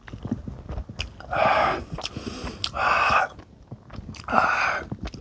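A person eating spicy instant yakisoba noodles close to the microphone: wet chewing and small mouth clicks, with three long breathy mouth sounds about a second and a half apart.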